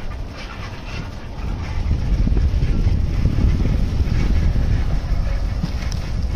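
Wind buffeting the microphone of a camera riding on a moving bicycle, with road noise: a steady low rumble that grows louder about a second and a half in.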